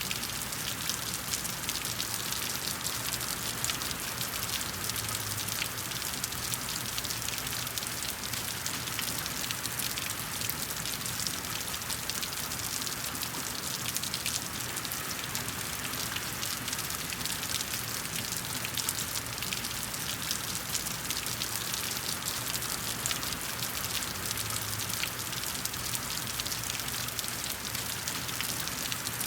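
Steady rain, with a dense, even hiss of drops pattering on a surface.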